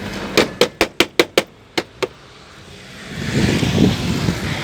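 Eight sharp knocks in quick succession on a Skoda Octavia's car battery, struck to get the starter to crank on a car that otherwise stays silent when the key is turned. A louder, noisy rustle follows near the end.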